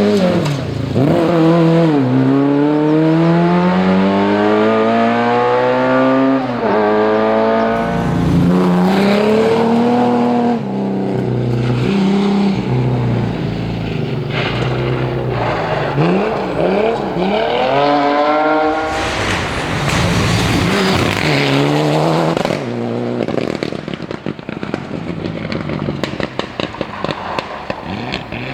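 Rally car engine revving hard, pitch climbing in steps with a sudden drop at each gear change, over tyre and road noise. A second hard acceleration comes about sixteen seconds in.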